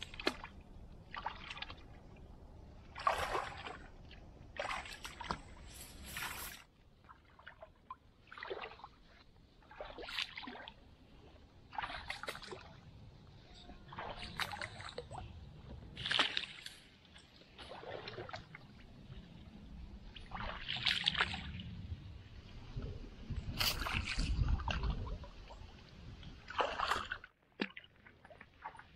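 A person wading through shallow, icy water, the steps sloshing and splashing every second or two.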